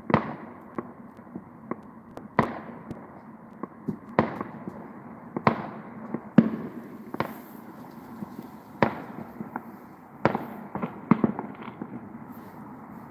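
Distant fireworks going off: irregular sharp bangs every second or so, each with an echoing tail, and a quicker run of pops near the end.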